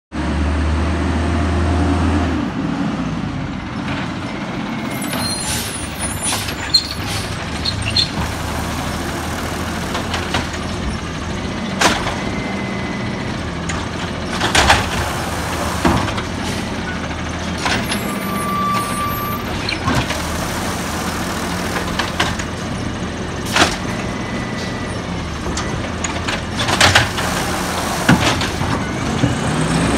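Peterbilt 320 automated side-loader garbage truck running steadily while its hydraulic arm lifts a trash cart, empties it into the hopper and sets it back down. Several sharp bangs of the cart and arm are heard along the way.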